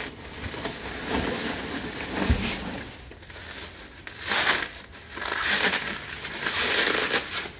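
Plastic wrapping, bubble wrap and box packing crinkling and rustling in irregular handfuls as a new exhaust muffler is lifted out of its cardboard box, loudest in the second half.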